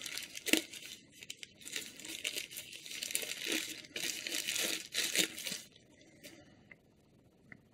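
Thin white wrapping paper crumpled and pulled off a pair of new wireless earphones, an irregular crinkling that stops a couple of seconds before the end.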